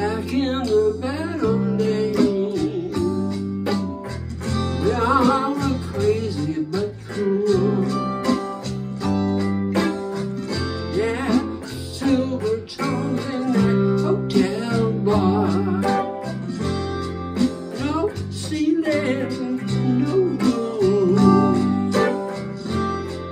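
Man singing a song while playing an electric guitar, over a bass line and a steady beat.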